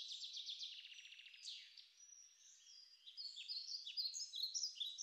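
Small birds chirping and calling: a rapid trill in the first second and a half, then a run of short, high, downward-sliding notes from more than one bird.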